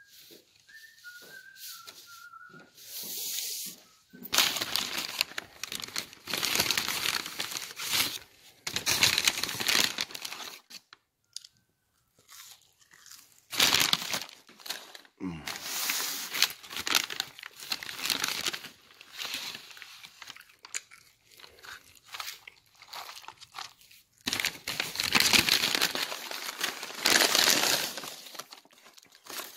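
Paper fast-food bag and burger wrappers crinkling and tearing in repeated bursts as the meal is unpacked. A thin high whine fades out in the first two seconds.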